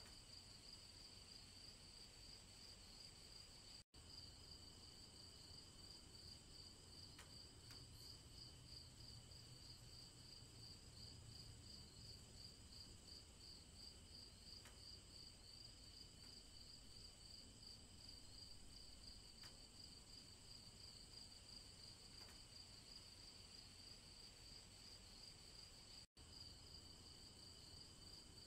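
Faint, steady chorus of crickets: a high, pulsing trill that cuts out for an instant twice, about 4 seconds in and near the end.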